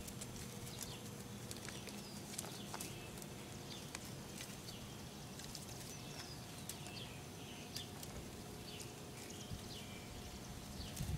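Quiet outdoor ambience: many short high chirps of small birds, a steady low hum, and faint scattered ticks and rustles as kittens tussle in dry twigs.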